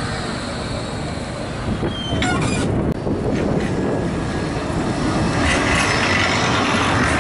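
Bombardier Flexity 2 trams running on street track: a continuous rumble of wheels on rail, with a few sharp clicks, growing louder about two-thirds of the way through as a tram passes close.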